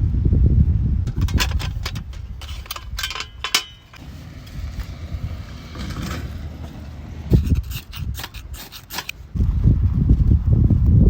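Strong wind buffeting the microphone with a deep rumble that drops away after about two seconds and returns near the end. In the lull come two spells of small metallic clinks and rattles, like camping gear being handled.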